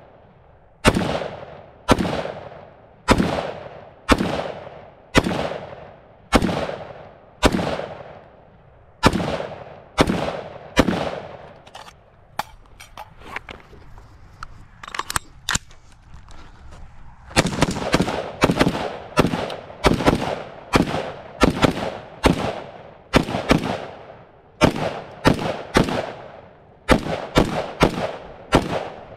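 Daniel Defense MK18 short-barreled 5.56 mm rifle firing single shots, each crack trailing off in a short echo, about one a second. Near the middle there is a pause of a few seconds with light handling clicks. Then the shots come faster, about two a second, some in quick pairs.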